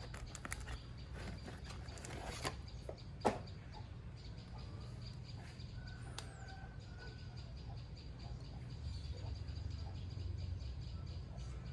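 Handling noises: a few sharp clicks and taps in the first few seconds, the loudest about three seconds in, over a steady low hum, with faint short calls or squeaks about halfway through.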